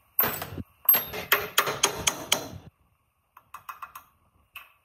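Rapid metal-on-metal hammer taps on an old air compressor's cast-iron cylinder block, about four a second, knocking the rusted block loose from the crankcase. A few lighter clicks follow near the end.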